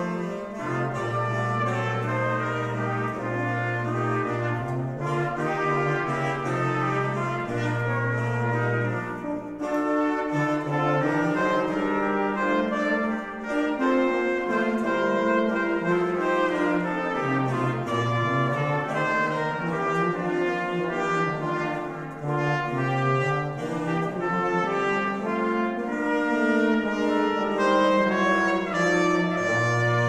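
Brass ensemble music: trumpets and trombones playing sustained chords over long held bass notes.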